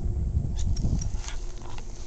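Footsteps crunching on loose rock and gravel, with wind rumbling on the microphone and a few brief high chirps.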